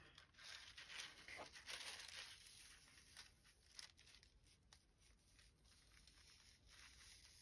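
Faint crinkling and crackling of a thin Hollytex sheet, a nonwoven polyester fabric, being peeled slowly off a wet comic book page. It has scattered soft ticks and grows softer after the first couple of seconds.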